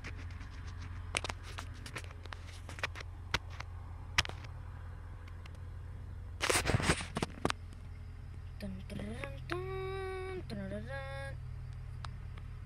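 Phone handling noise inside a car: scattered clicks and rubbing of the phone against clothing over a low steady cabin hum, with one louder rustle about halfway through. Near the end a person's voice makes a few drawn-out sounds.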